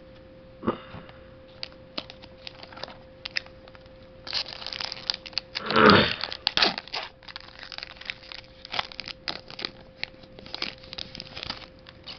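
Foil Pokémon booster pack being handled, torn open and crinkled, with many irregular crackles and a louder tearing rustle about six seconds in. A faint steady hum runs underneath.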